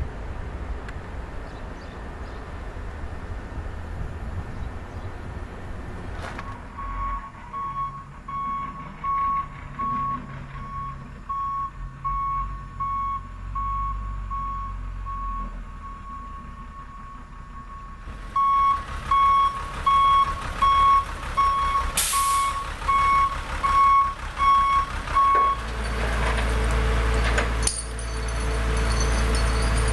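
A truck's reversing alarm beeping at one steady pitch, about once a second, over a running engine. The beeps grow louder partway through, there is a brief hiss after that, and the engine rumble swells and the beeping stops near the end.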